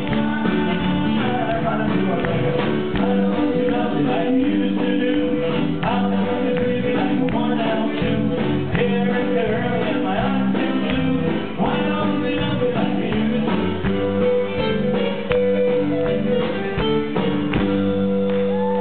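Live band music from a concert stage: electric guitar and keyboard playing a song with a steady beat and held keyboard notes.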